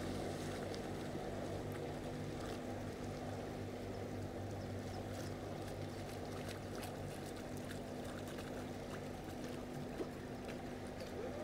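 A boat's engine running steadily, a low even hum.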